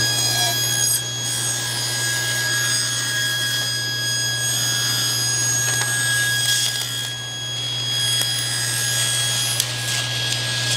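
SawStop table saw running, its blade ripping a narrow strip off a sheet of 1/8-inch Baltic birch plywood: a steady high whine over the motor's hum, with the rasp of the cut.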